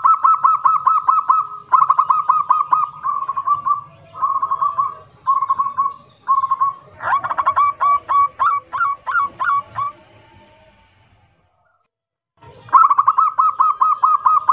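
Zebra dove (perkutut) singing loudly, in the song style keepers call kerot nguwor. It gives fast rattling cooing trills on one pitch in several phrases that grow shorter, then a run of about eight drawn-out slurred coos. After a pause of about two seconds, another rattling trill starts near the end.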